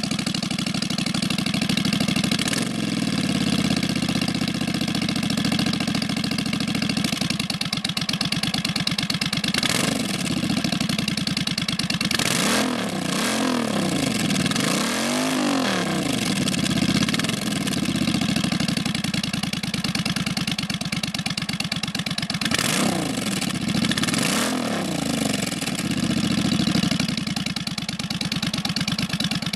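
Suzuki Intruder 1400's V-twin running through Cobra drag pipes with baffles, revved several times, the pitch climbing and falling back with each blip, between stretches of idle. The biggest run of revs comes in the middle, with another near the end.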